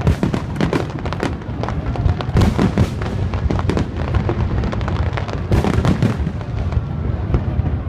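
Aerial fireworks shells bursting in quick succession: a dense, continuous run of bangs and crackles over a low rumble.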